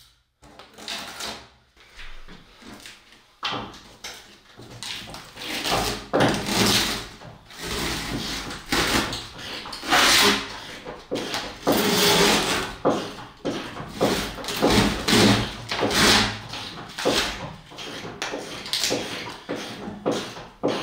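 Rexine leathercloth wall covering being ripped off the interior panels of an AEC Routemaster bus: repeated irregular tearing and scraping noises, with a few knocks in between.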